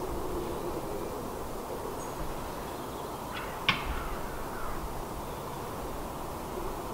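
Steady outdoor background noise, with one short sharp sound about three and a half seconds in, a quick double crack or call that trails off.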